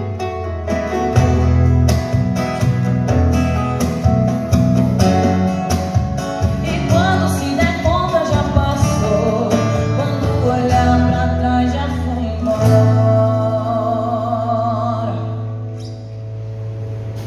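A woman singing a sertanejo song into a microphone with acoustic guitar accompaniment. Near the end her last note wavers and stops over a sustained low guitar note, and the music fades out.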